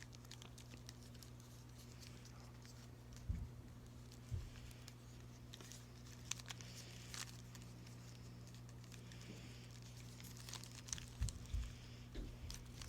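Faint, irregular clicks and rattles of a plastic 3x3 Rubik's Cube being twisted by hand, with a few louder knocks, over a steady low hum.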